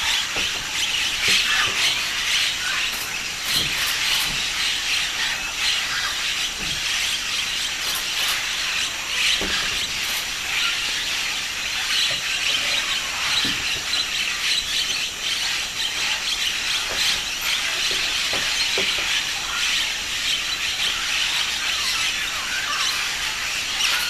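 A large flock of blue-headed parrots calling together while feeding on a clay bank: a continuous din of many overlapping high-pitched squawks and squeals.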